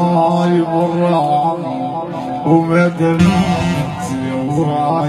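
Live raï music played loud through a sound system: an instrumental passage with a stepping melodic lead line and no singing, and a short low rumble about three seconds in.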